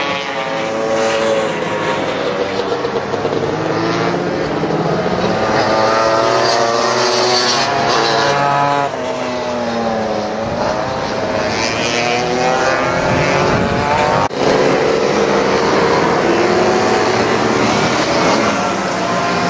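Several racing scooter engines revving and passing, their overlapping whines rising and falling in pitch as they brake and accelerate through the corners.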